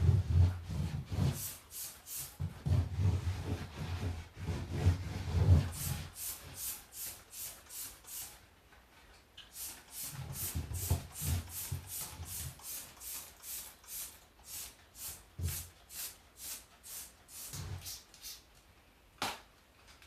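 Rhythmic scrubbing or rubbing strokes on a surface, about three to four a second, with deep knocks and handling bumps in stretches and one sharp click near the end.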